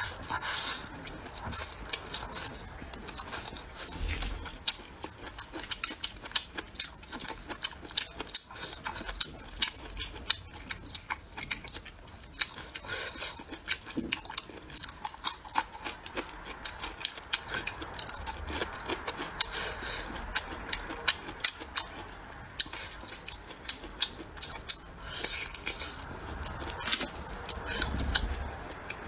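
Close-up eating of braised pork trotters: dense, quick, wet chewing and lip-smacking clicks as the soft, sticky trotter skin is bitten and chewed.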